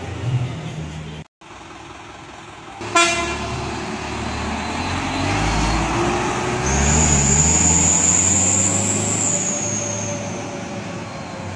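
Heavy chili-hauling truck driving past and pulling away, its engine rising in pitch as it accelerates, with a sudden loud horn toot about three seconds in. A high steady whistle sounds over the engine through the second half, dipping and fading near the end.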